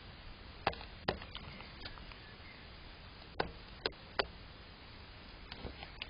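A gull's beak knocking against a stainless steel food bowl as it pecks at food, giving sharp clicks in small irregular groups.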